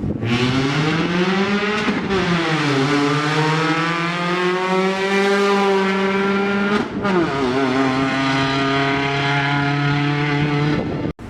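Ford Fiesta rally car's engine through its open free-flow exhaust, accelerating hard and shifting up twice, about two seconds in and again about seven seconds in, then holding speed before the sound cuts off suddenly near the end.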